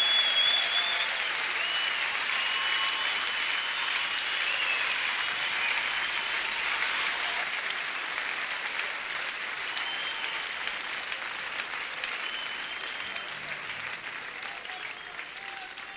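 Audience applauding, with a few high whistles, slowly fading out.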